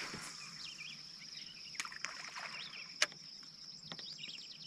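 Outdoor lakeside ambience: a steady high-pitched insect trill with birds chirping over it, and a few sharp clicks and knocks, the loudest about three seconds in, from the anglers' rods and reels in the boat.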